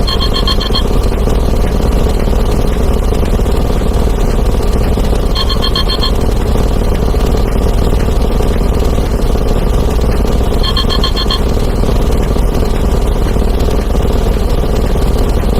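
A dense, steady din of rapidly overlapping sound effects: explosions, glass breaking and a synthetic voice saying "plus one", blended into one continuous rumble. A short electronic phone ring cuts through it three times, about five seconds apart.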